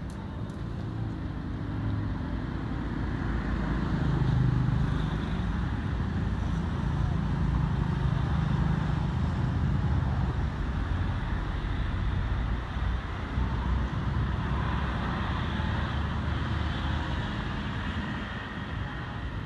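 A motor engine running somewhere off-picture, a steady low rumble that grows louder a few seconds in and then holds.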